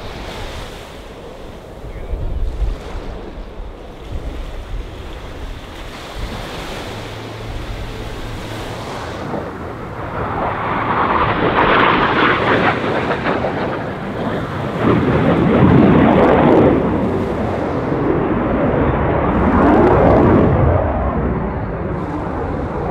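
Twin-engine F/A-18 Super Hornet jet noise building as a single Blue Angels jet makes a low, fast pass over the water. The noise peaks about halfway through, then swells again as the jet pulls up into a climb. Wind buffets the microphone in the first seconds.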